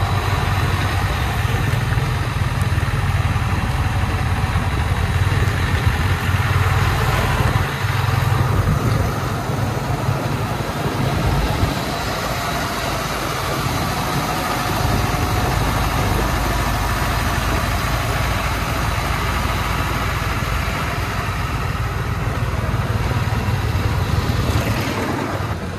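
Diesel dump truck carrying soil, driving slowly with its engine running in a low, steady drone.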